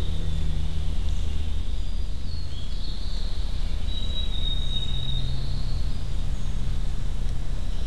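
Woodland ambience: a steady low rumbling noise, with thin, high-pitched calls that come and go, including a brief glide about two and a half seconds in and a held note around four to five seconds in.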